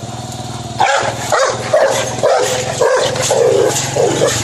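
Rottweiler barking aggressively, a run of loud barks about two a second that starts about a second in, over a steady low hum.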